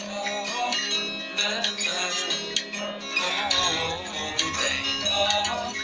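Background music: a melody over sustained chords with light percussive ticks, a low bass part coming in about halfway through.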